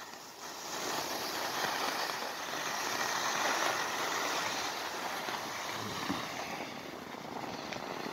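Skis sliding over packed, groomed snow with a steady hiss as the skier glides downhill.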